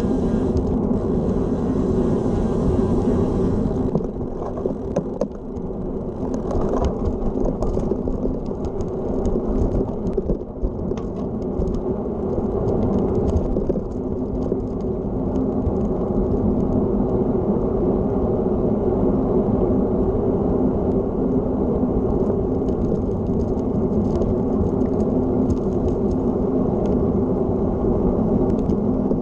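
Wind buffeting a handlebar-mounted camera microphone over the tyre noise of a road bike rolling along an asphalt path, a steady low rumble. A higher hiss drops away about four seconds in, and a few light ticks follow over the next several seconds.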